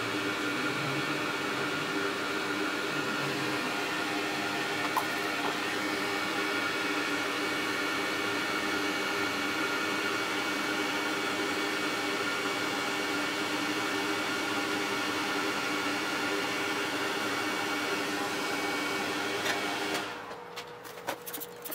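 Hot-air rework station blowing steadily with a fan hum, heating a graphics card's power-stage MOSFETs to desolder them. The airflow cuts off near the end.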